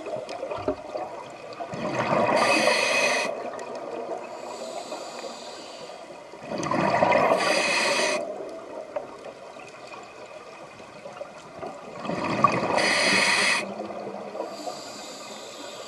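Scuba diver breathing through a regulator, heard underwater: three breaths about five seconds apart, each a surge of bubbling with a hiss, with a quieter water wash between them.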